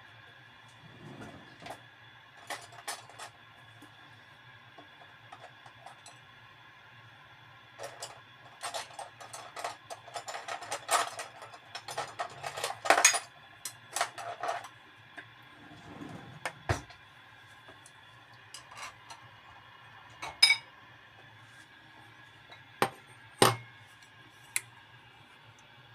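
Scattered clicks, taps and clatter of small hard objects being handled, thickest in the middle, with a few sharp knocks near the end, over a steady faint hum.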